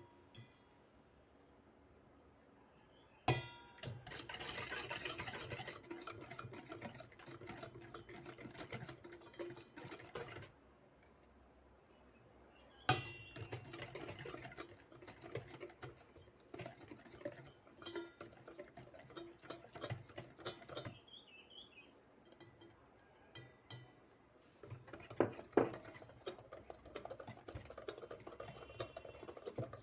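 Flour mixture sliding into a stainless steel mixing bowl, then a spatula stirring and scraping thick batter against the bowl in irregular stretches, with a few sharp knocks against the bowl.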